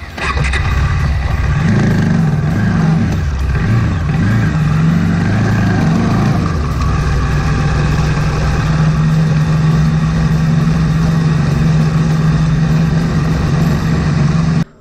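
Bajaj Dominar 400's single-cylinder engine running under way, its pitch rising and falling over the first few seconds and then holding steady. It cuts off suddenly near the end.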